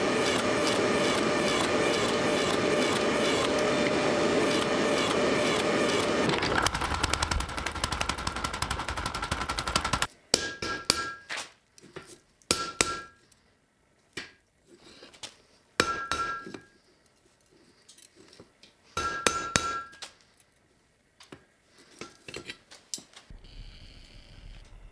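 A steady, dense machine noise that changes tone partway through and stops about ten seconds in. Then a hammer strikes metal in short groups of blows a few seconds apart, each ringing briefly.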